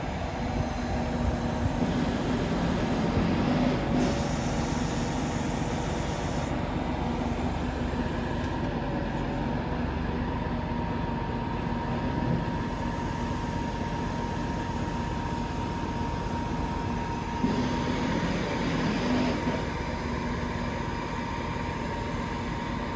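Heavy diesel engine running steadily, a continuous drone with a thin high whine from about a third of the way in.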